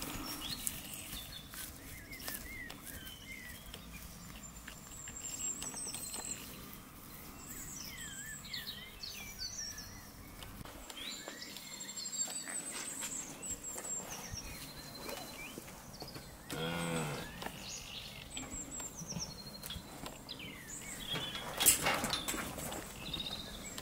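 Small birds chirping and whistling throughout. About 17 s in, a calf gives one short moo lasting about a second. Near the end there are a couple of sharp knocks.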